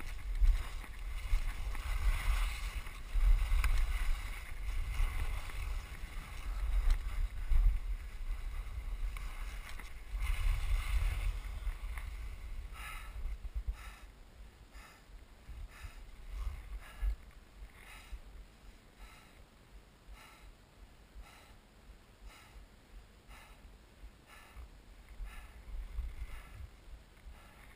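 Wind rushing over the camera's microphone while a rider's edges scrape over packed snow on a fast downhill run. After about twelve seconds it drops clearly quieter, leaving a scatter of light ticks and scrapes as the rider slows.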